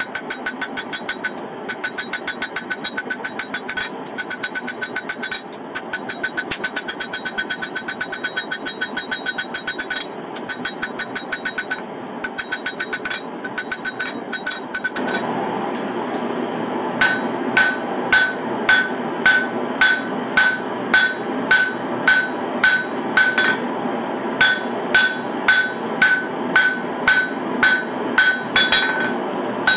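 Hand hammer forging a hot katana blade on a steel anvil, each blow ringing the anvil. The first half is runs of fast, light strikes broken by short pauses. From about halfway a steady rumble rises in the background, and heavier strikes follow at about two a second.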